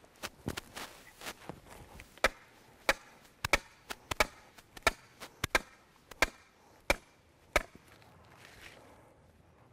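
Hammer blows driving a wooden stake into the ground to hold a silt fence: a steady run of a dozen or so sharp wooden knocks, about three every two seconds, that stops near the end.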